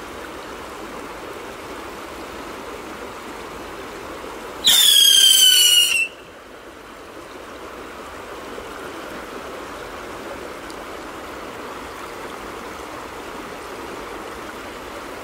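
Steady rush of a shallow river. About four and a half seconds in, a rocket firework shoots off with a loud whistle that falls slightly in pitch over about a second and a half, then cuts off.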